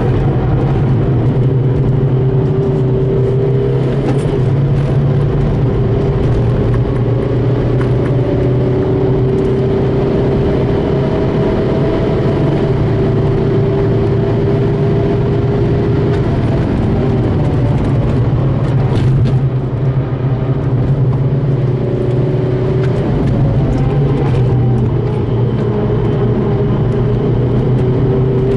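VW Golf Mk5's remapped 2.0 TDI Pumpe-Düse diesel engine under hard track driving. Its note rises and falls as the revs change, with a brief dip about twenty seconds in.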